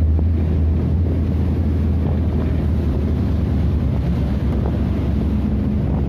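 Boat under way in rough sea: a steady low engine drone under the rush of churning water along the hull, with wind buffeting the microphone.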